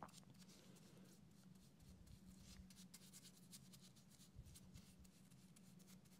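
Faint, scratchy strokes of a paintbrush working lye solution over a cherry wood cutout, over a low steady hum.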